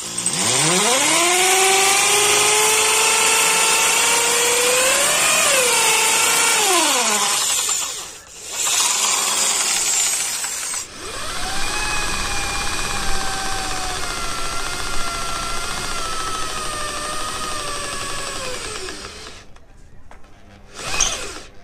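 Buildskill corded hammer drill running and drilling into a painted masonry wall: the motor whine rises as it spins up, holds for several seconds and winds down, followed by a short burst. It then drills through a flat metal bar held in a bench vice, running steadily for about eight seconds with its pitch sagging slightly under load before it stops.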